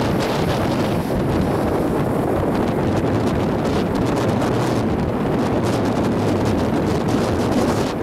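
Strong wind buffeting the microphone: loud, steady rushing noise that gusts unevenly.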